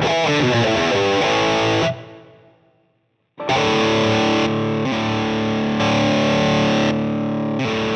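Distorted electric guitar through the Fractal Axe-Fx III's Plexi amp model: a short lead phrase that rings out and fades, then after a brief gap, held crunchy chords. About four and a half seconds in the level drops slightly as the sound goes from the boosted Plexi Lead scene, with its 4 dB solo boost, to the unboosted Plexi Crunch scene.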